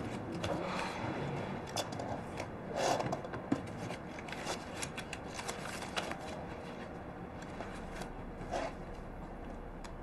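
Paper and a folder being handled at a desk: rustling with small clicks and scrapes, busiest in the first half with a louder flurry about three seconds in, then thinning to occasional soft sounds.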